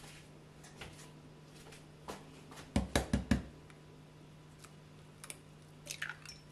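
An egg knocked four times in quick succession to crack its shell, then, near the end, the shell crackling as it is pulled apart and the egg drops into a glass bowl.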